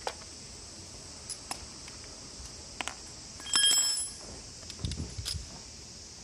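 Hand tools clinking and clicking against metal during spark plug work. The loudest is a ringing metallic clink about three and a half seconds in, then a few duller knocks, over a steady high hiss.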